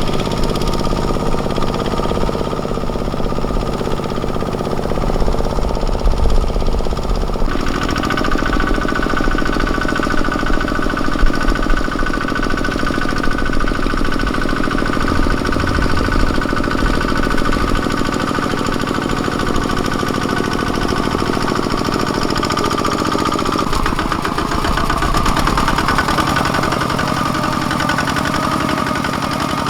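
Kubota ZT155 single-cylinder diesel engine of a two-wheel mini tractor running steadily with a knocking beat. Its tone shifts about seven seconds in and again a little before the end.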